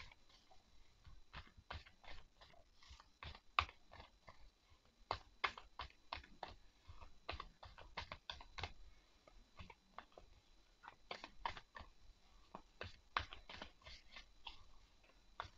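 A deck of matte tarot cards being shuffled by hand: faint, irregular clicks and light slaps of cards, a few a second.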